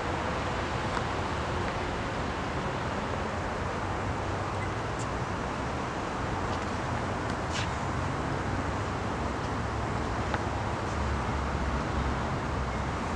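Steady outdoor background noise: a low rumble with a hiss over it, as of wind on the microphone and distant traffic. A deeper rumble grows near the end.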